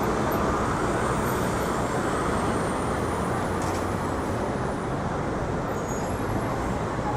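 Steady city street traffic noise: engines and tyres of passing vehicles blending into a continuous rumble.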